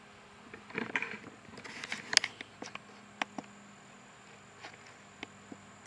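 Handling noise of a camera being moved and carried: scattered clicks and knocks, a short rustle about a second in and a sharp click about two seconds in, then quieter.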